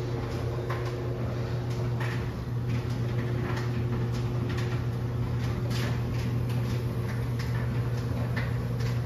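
Steady hiss and hum of water spraying under mains pressure from a pinhole leak in a corroded copper water line inside an opened wall, with faint irregular ticks of droplets.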